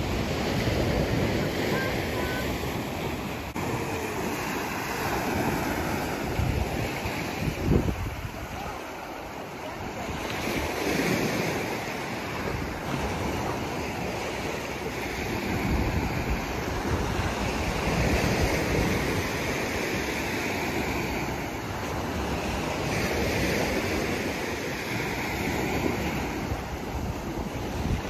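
Small sea waves breaking and washing up the beach, the wash swelling and falling back every several seconds, with wind rumbling on the microphone.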